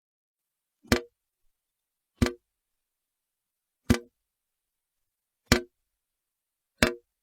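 Water drops dripping, five single drips about one and a half seconds apart, each a short sharp plink.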